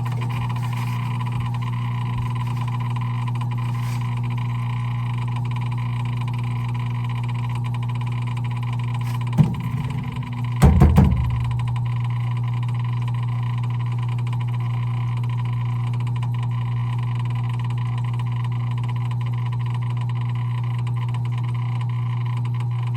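Frigidaire/Electrolux front-loading washing machine running with a loud, steady electric hum, run with its door removed to find a leak. About halfway through there is a knock, then a short clatter.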